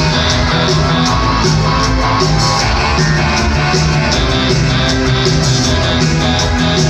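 Rock band playing live: loud, dense music with a steady beat.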